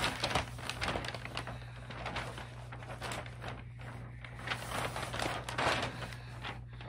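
Gift wrapping paper rustling and crinkling as a roll of it is handled, in irregular bursts, strongest about a second in and again around five to six seconds in.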